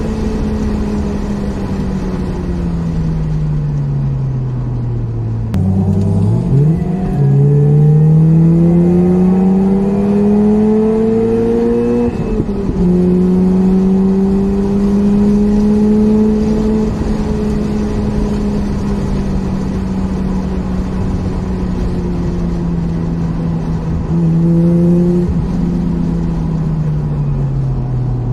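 Mazda RX-8's twin-rotor rotary engine heard from inside the cabin while driving. The revs fall for the first few seconds, jump with a throttle blip about five seconds in, then climb steadily under acceleration until an upshift near the halfway point. The engine then cruises with the revs slowly dropping, broken by one more short blip near the end.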